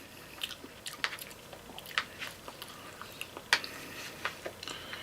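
A person chewing a mouthful of red beans and rice with chicken, close to the microphone, with scattered faint mouth clicks.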